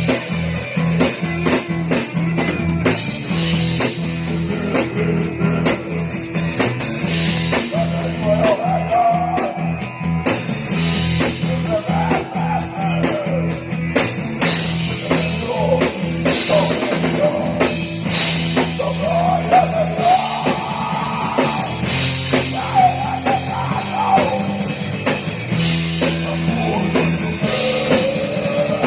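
Rock band jamming: a drum kit keeping a steady beat under electric guitar and bass.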